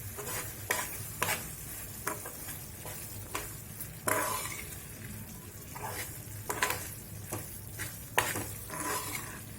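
A spoon stirring thick, sticky jaggery rice in a pan on a lit stove, with repeated short scrapes against the pan over a low, steady sizzle.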